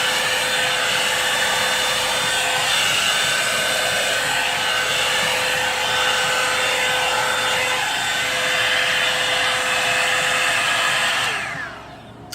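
Revlon blow-dryer brush running on high: a steady rush of air with a motor whine. It is switched off about eleven seconds in, and its pitch falls as the motor spins down.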